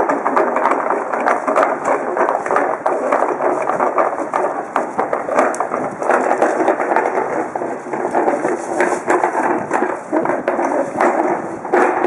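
Small hard wheels of a flatbed hand cart rattling and clattering continuously as it is pushed over an uneven flagstone floor, with a louder knock near the end.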